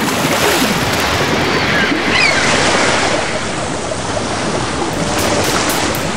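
Ocean surf: a steady rush of breaking waves, with a couple of short high chirps about two seconds in.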